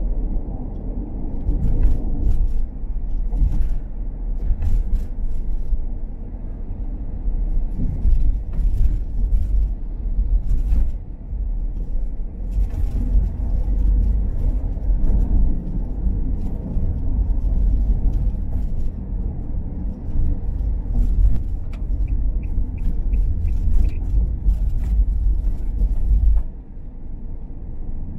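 A car on the move: a steady low rumble of engine and road noise, with scattered sharp knocks. The rumble drops off a couple of seconds before the end.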